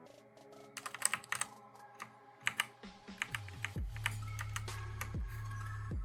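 Typing on a Redragon Dark Avenger mechanical keyboard with Outemu brown switches, in quick clusters of keystroke clicks. Background electronic music plays under it, and its heavy bass and kick drum come in about halfway through.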